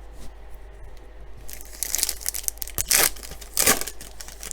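A trading-card pack wrapper being torn open and crinkled, in a few short rustling rips, the loudest about three seconds in.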